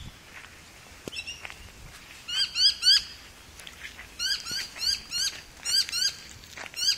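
A bird calling: short rising chirps, three in quick succession a little over two seconds in, then a run of evenly spaced chirps at about four a second from about four seconds in.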